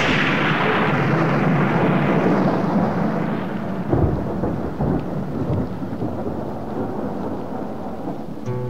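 A thunderclap breaks suddenly and rumbles away over several seconds under a hiss of rain, a recorded storm effect opening a song. Near the end, plucked guitar notes come in.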